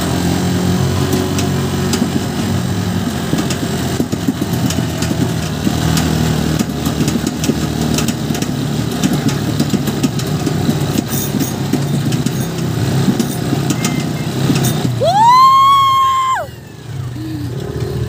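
Motorcycle engine running steadily under way, with many short clicks and rattles. About fifteen seconds in, a long, high shout rises, holds for over a second and drops off; it is the loudest sound in the stretch.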